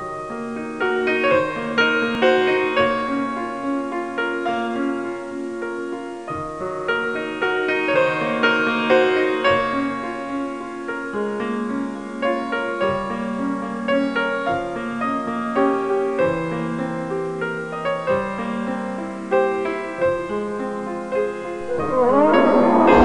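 Piano music: a busy run of notes over bass notes that change every second or two. Near the end a louder swell comes in under it.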